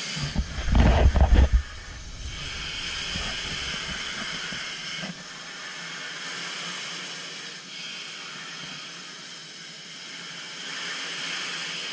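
Steady hiss of gas flowing through the divers' built-in breathing masks, swelling and easing about every three seconds with each breath. A loud rumbling knock of the camera being handled comes in the first second or so.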